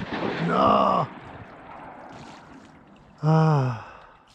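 Duck call blown by a hunter to birds overhead: two loud quacks, each about half a second long and some two and a half seconds apart, the second falling in pitch.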